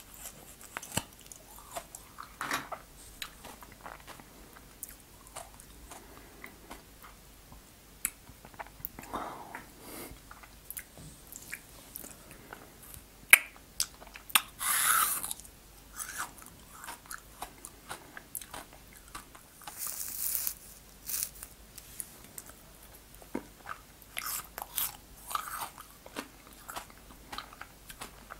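Mouth sounds of eating frozen fruit ice from a plastic tube: many small crunching clicks as the ice is bitten and chewed. There are two longer hissing sucking sounds, one about halfway through and one a few seconds later.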